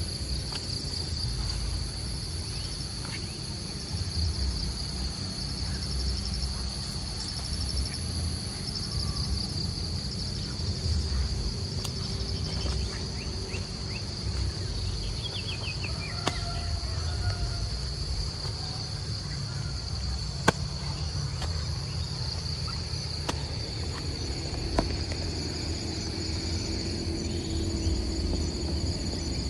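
Steady high-pitched insect chorus over a low rumble, with a few faint clicks.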